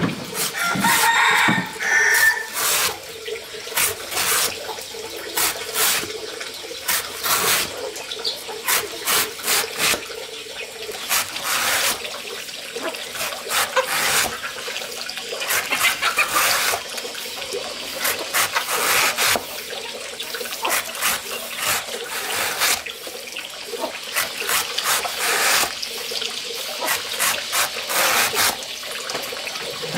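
Water splashing and running in irregular bursts, with a short animal call about a second in.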